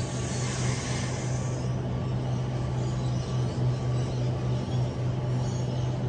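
A double-deck electric passenger train standing at a platform with a steady low electrical hum from its onboard equipment, and a brief high hiss in the first second and a half.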